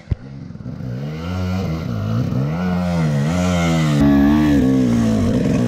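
Enduro dirt bike engine revving, its pitch rising and falling again and again as the throttle is opened and closed, growing louder over the first second.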